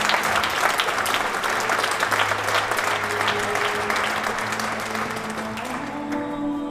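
An audience applauding with many rapid hand claps, thinning out near the end, over soft background music with steady sustained notes.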